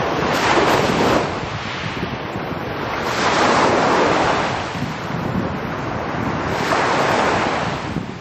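Small sea waves breaking on the shore, a rushing wash that swells about every three seconds.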